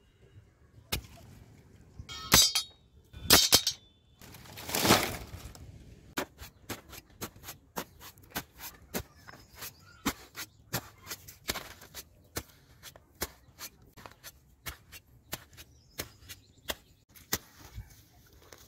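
A stick jabbed repeatedly into wet mud, digging a hole: short sharp strokes, two to three a second. They are preceded by a few louder knocks and a burst of rustling.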